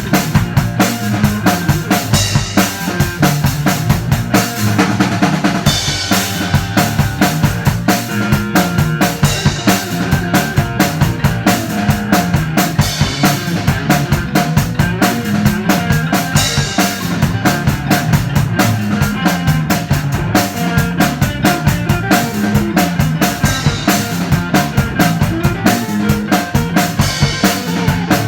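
Rock band playing an instrumental passage: a drum kit keeping a steady beat with kick, snare and rimshots, under a moving bass line and guitars.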